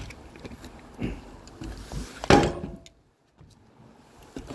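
Work handling noises: a few knocks, then a louder clatter about two seconds in, after which the sound cuts out for a moment and stays low, with a light click near the end.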